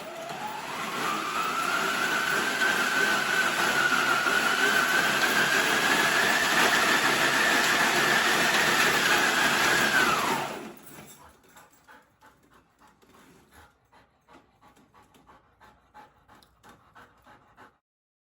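Slatmill running under a dog: the slats and rollers give a steady rumble with a whine that climbs slowly as the belt speeds up, then winds down and stops about ten seconds in. Faint, quick, evenly spaced ticking follows.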